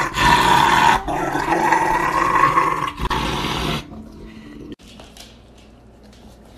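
Rottweiler growling and grumbling loudly with its mouth open, in a few long stretches that stop about four seconds in.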